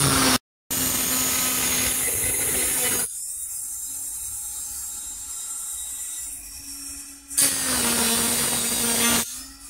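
Flexible-shaft rotary tool spinning a cylindrical burr against a titanium knife handle scale, engraving the background of a relief design: a steady motor hum under a harsh grinding hiss. The grinding is heavy for the first few seconds, with a brief dropout just under a second in. It lightens through the middle, then comes back heavy near the end.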